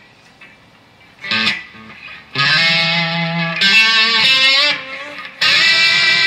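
1972 Gibson Les Paul Deluxe electric guitar, amplified, played with the wah-wah effect still switched on. A short note comes about a second in, then loud held chords with a wavering stretch in the middle. After a short break, another chord comes near the end.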